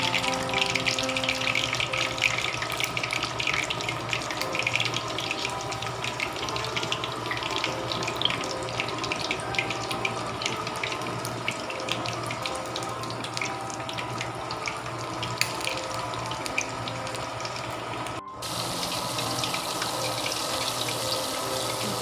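Pork leg deep-frying in hot oil: a steady sizzle with dense crackling as the skin blisters and crisps, over a low steady hum. The sound cuts out for a moment near the end.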